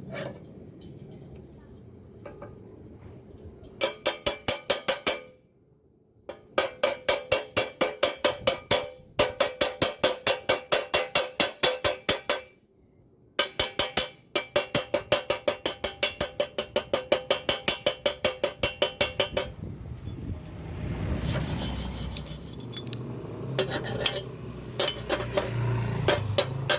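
Chipping hammer rapping quickly on stick-welded thin square steel tubing to knock the slag off the weld bead, the hollow tube ringing at every blow, about seven strikes a second in three long runs. Near the end the strikes give way to rougher, irregular scraping and knocks.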